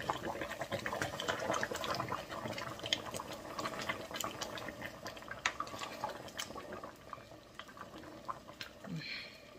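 Pot of dumplings boiling on the stove: a dense crackle of popping bubbles that slowly fades toward the end.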